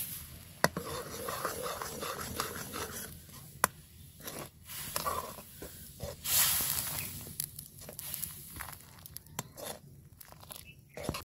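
A metal ladle stirring a boiling liquid in a metal wok, scraping and knocking against the pan with a few sharp clinks, and a louder rush of stirring noise about six seconds in.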